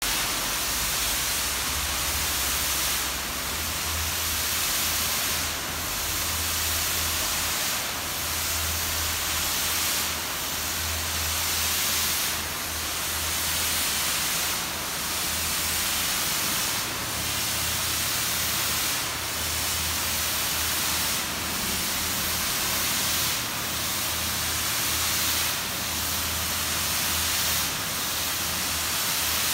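Spray gun hissing steadily as it lays on glassflake-reinforced epoxy tank lining, the hiss dipping briefly every two to three seconds, with a low hum underneath.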